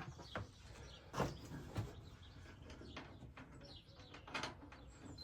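A few light knocks and clicks from hands working on the van's camera fittings and wiring, with faint bird chirps.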